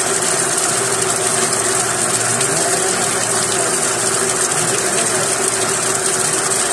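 Electric well pump running steadily with a constant hum, while water gushes from its pipe and splashes onto the ground: the pump is primed and delivering water from the well.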